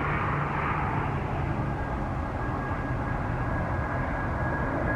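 Boeing 737 MAX 9's twin CFM LEAP-1B turbofans at takeoff power as the jet lifts off and climbs out: a steady jet noise, with a thin steady whine joining in about a second and a half in.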